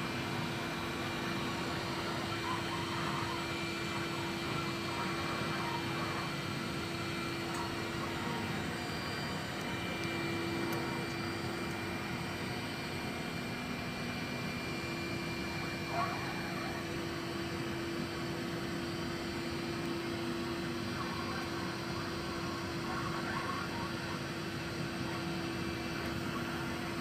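Window-cleaning robot's suction fan running steadily with a constant whir and hum as the robot crawls over the glass pane. A brief sharp sound about sixteen seconds in.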